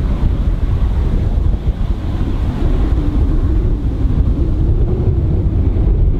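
Wind buffeting the camera microphone, a loud, steady low rumble. A faint wavering engine drone sits underneath in the second half.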